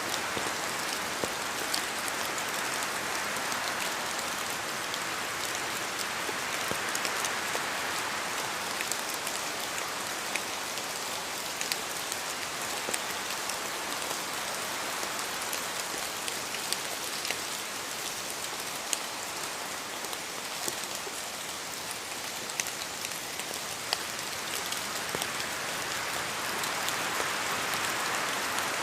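Steady rain falling on a surface: an even hiss with many separate drops ticking sharply throughout.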